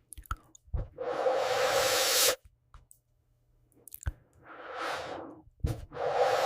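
Breath blown hard through a thin corrugated melodica hose, a loud airy rush lasting about a second and a half, starting about a second in and again near the end. Between the two, a softer breath through the tube swells and fades, and a few small clicks come before each blow.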